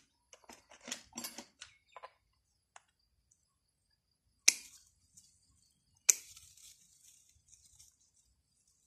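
Pruning shears snipping twice, sharp clicks about four and a half and six seconds in, as bonsai shoots are cut. Light rustling of leaves and twigs follows the second cut.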